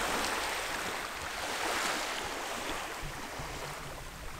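Steady wash of water noise at a river's edge, with no distinct splash or call standing out.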